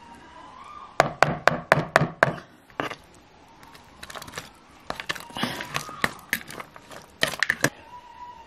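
A knife tapping and scraping against a plastic bowl as chopped tomato, onion and chilli are mixed: a quick run of about eight sharp clicks about a second in, then scattered clicks.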